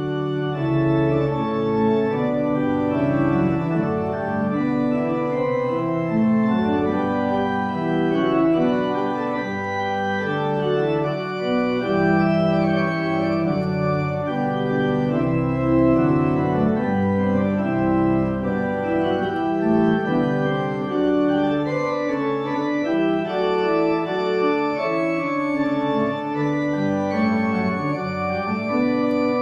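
Organ music: slow, sustained chords with notes held and changing throughout.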